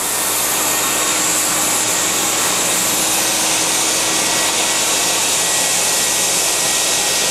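Ruwac WS2320 single-phase industrial vacuum running at full suction: a loud, steady rushing of air through the 20-inch floor tool as it sucks up glass bead blasting media.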